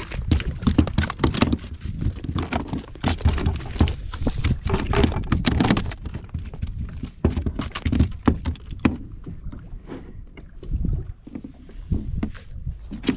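Water splashing and slapping irregularly against a kayak's hull, with wind rumbling on the microphone.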